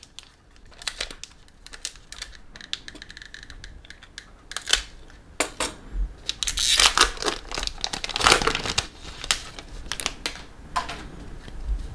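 Trading-card pack handling: crinkling and rustling of a foil pack wrapper and cards being shuffled, with small clicks throughout and a louder stretch of crinkling about six seconds in.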